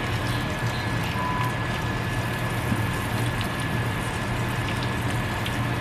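An egg frying in grease in a pan, sizzling with faint crackles, over a steady low hum.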